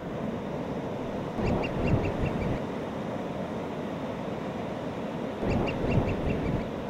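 Surf breaking on a beach, with two short bursts of rapid, repeated gull calls, the first about a second and a half in and the second near the end.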